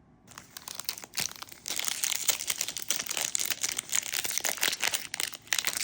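A trading-card pack wrapper being torn open and crinkled by hand, a dense crackling that starts just after the beginning and grows louder about two seconds in.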